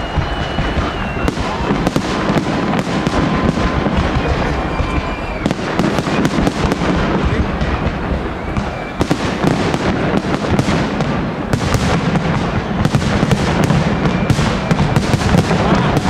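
Large fireworks display: a dense, continuous barrage of bangs and crackles going off in quick succession, with faint whistling tones.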